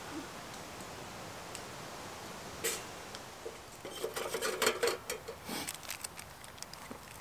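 Split wooden kindling sticks being loaded into a small metal Bond Stove Mini wood stove, knocking and clattering against it. There is one knock a little under three seconds in, then a quick run of clicks and clatters about four to five seconds in.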